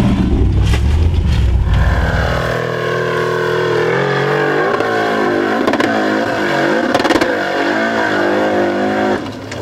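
Formula offroad buggy engine at hard throttle on a steep sand hill climb. For about the first two seconds a deep engine note dominates; then a higher-revving engine takes over, its revs surging up and down over and over, and it cuts out abruptly just before the end.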